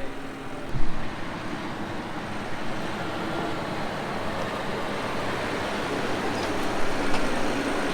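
John Deere 6250R tractor running with a Krone Big Pack 890 big square baler at work, a steady mechanical noise with a single sharp thump about a second in.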